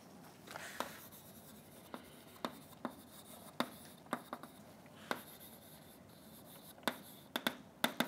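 Chalk writing on a blackboard: irregular sharp taps and short scratches of the chalk against the board, sparse at first and coming thicker near the end.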